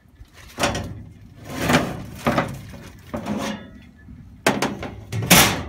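A Hayward pool heater's side access panel being worked loose and pulled off its cabinet: about six scrapes and knocks, the loudest near the end.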